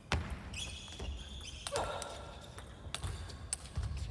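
Celluloid-type plastic table tennis ball being struck by rubber-faced paddles and bouncing on the table during a rally: a run of sharp, irregular clicks, the loudest right at the start, with the echo of a large sports hall.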